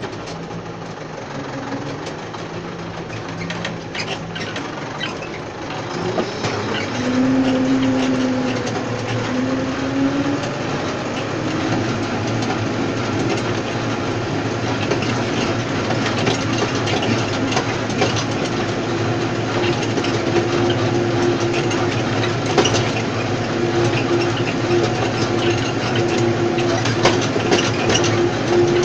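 Tractor engine running, rising in pitch and loudness about six seconds in and then holding a steady note as it pulls a tine stubble cultivator through the soil. Metal rattling and clicking from the hitched cultivator runs over the engine.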